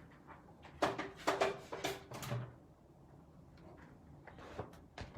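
A cluster of knocks and scrapes from card and crafting tools being handled and repositioned on a table, then quieter handling noise and a sharp knock at the end.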